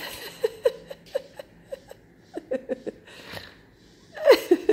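A woman laughing in a run of short giggles, a few each second, with the loudest burst of laughter near the end.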